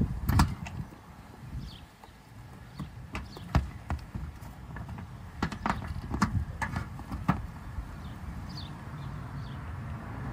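Irregular clicks and knocks from a cordless drill and a screw being handled and set against a plastic car bumper, with no steady run of the drill's motor.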